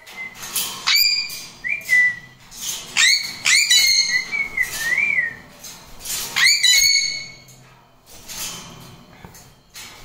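Caged pet parrots whistling: a run of clear whistled notes, several opening with a quick upward swoop and some wavering, with harsher rasping calls between them.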